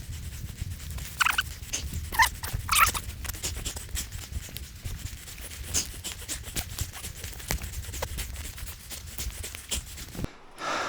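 A person forcing a way on foot through dense wet scrub: twigs and branches crackling and snapping underfoot and against the body, with hard, puffed breathing and three short grunts in the first few seconds.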